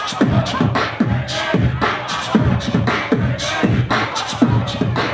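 Beatboxing through a PA: deep vocal kick-drum thumps on a steady beat about twice a second, with snare and hi-hat sounds in between.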